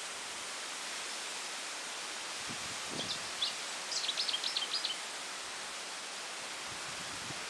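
Steady, even outdoor hiss of natural ambience, with a small bird singing a short run of quick, high chirps about three to five seconds in.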